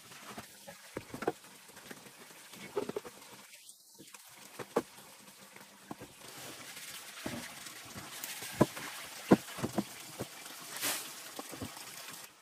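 Scattered light knocks and clatter of hands handling farm kitchenware: a woven bamboo tray set down, then a large aluminium wok. From about halfway in, a steady rush of water runs under sharper knocks of the wok being rinsed.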